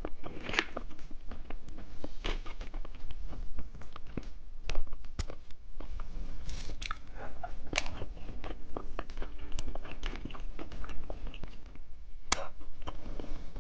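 Close-miked chewing and crunching of candy: a dense, irregular run of small crunches and clicks.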